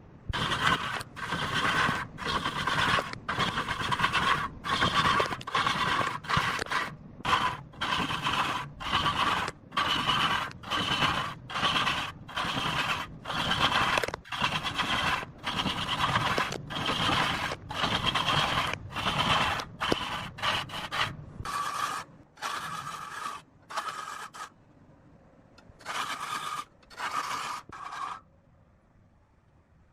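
Repeated back-and-forth scraping strokes on wood, about one and a half a second, with short pauses between them. The strokes slow and break up after about twenty seconds, then stop near the end.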